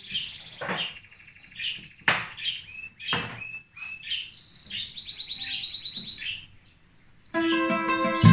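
Pet birds chirping in short calls and a quick trill, with a brief near-silent gap. Near the end a Cuban tres and acoustic guitars start playing together, louder than the birds.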